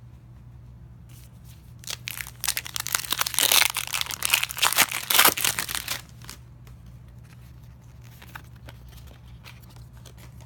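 Foil wrapper of a sealed trading card pack being torn open and crumpled, a loud burst of crinkling and tearing from about two seconds in that stops suddenly about four seconds later.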